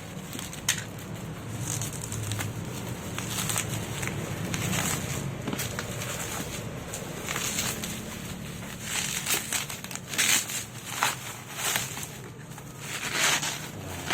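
Packaging being handled and opened: irregular rustling and crinkling of plastic and cardboard, with scattered clicks and knocks.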